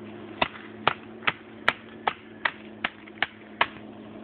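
Knife blade chopping into the splintering green wood of a thin sapling's trunk: a steady run of sharp strikes, about two and a half a second.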